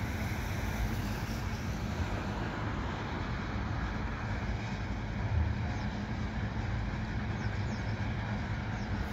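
Loaded crude oil tank cars of a freight train rolling past in a steady rumble.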